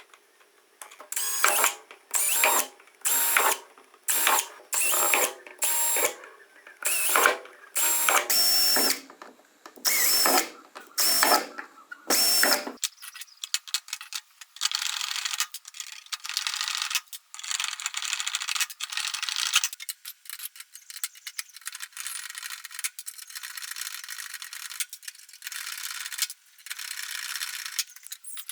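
A small power tool run in a rapid series of short bursts, each under a second, with a whine in each burst. About halfway through, the bursts stop and a thinner, higher-pitched mechanical whirring with clicks takes over, starting and stopping.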